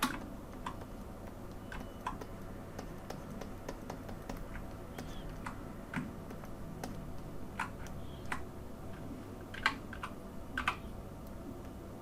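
Scattered, irregular clicks of computer keys during software work, about a dozen, with the loudest ones near the end, over a faint steady hum.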